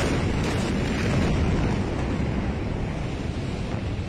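The blast wave of the Beirut explosion buffeting a phone's microphone: a loud, steady rushing roar of wind noise and low rumble, easing slightly toward the end.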